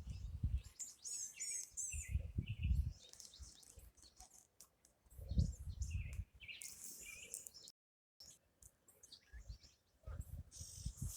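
Wild birds chirping and singing, with a quick run of high descending notes about a second in and scattered chirps throughout. Bursts of low rumbling noise come and go underneath. The sound cuts out completely for a moment about two-thirds of the way through.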